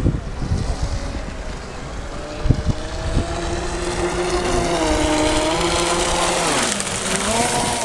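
Brushless electric motor and three-blade propeller of an RC offshore racing catamaran (Neu 2215 KV motor on 8S) running at speed. Its whine climbs steadily in pitch, drops sharply about three-quarters of the way in, then climbs again. Wind rumbles on the microphone throughout.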